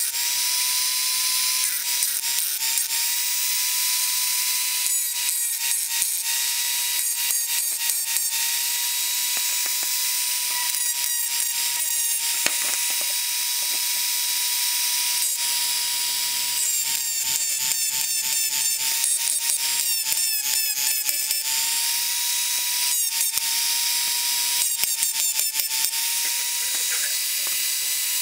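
Handheld rotary tool with a pink abrasive grinding stone, running at high speed with a steady high whine. In several bouts the stone grinds against the metal of a hand-forged drawing compass with a rasping sound, and the whine sags slightly in pitch under the load.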